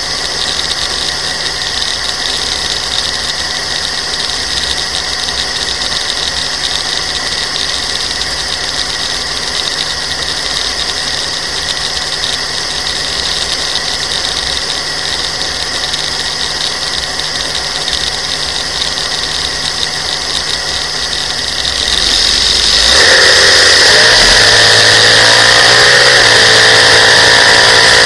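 Modified dragster's engine idling steadily at the start line, heard onboard. About 23 seconds in it goes to full throttle as the car launches, much louder, with the pitch wavering as it accelerates down the track.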